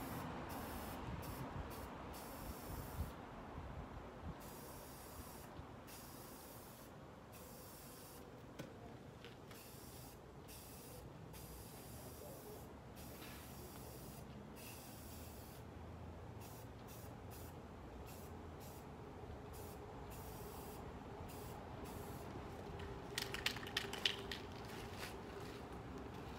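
Aerosol spray can hissing in a run of short sprays broken by brief pauses. A few light clicks and knocks come near the end.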